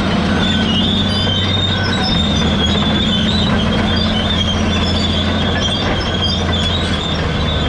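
Cat D10 crawler dozer on the move: its diesel engine runs steadily under a continuous high, wavering metallic squeal from the steel tracks and undercarriage.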